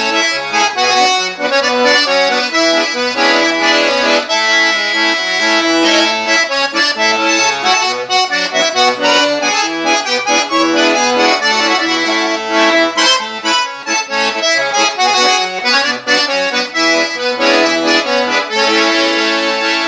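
Accordion (sanfona) playing a traditional Brazilian melody, a stream of quick notes over sustained chords.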